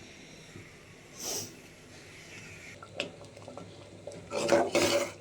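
Low kitchen background for about four seconds, then, in the last second, a metal spoon scraping and clattering against a cooking pot in quick, repeated strokes, as when a thick pot of food is stirred.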